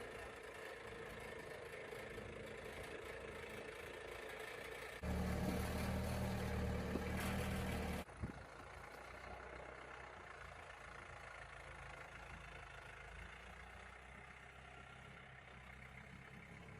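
A vehicle engine running steadily, getting louder for about three seconds in the middle and then dropping back abruptly to a steady run.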